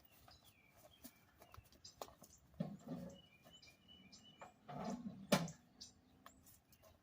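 Small birds chirping, with a few dull thumps about three seconds in and again near five seconds, and a sharp knock just after five seconds.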